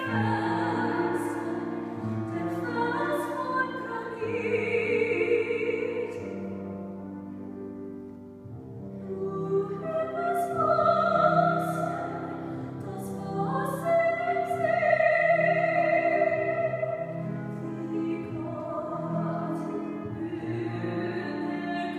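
A woman singing a German song in classical operatic style, with long held notes, accompanied by a grand piano. The voice pauses briefly for breath about eight seconds in.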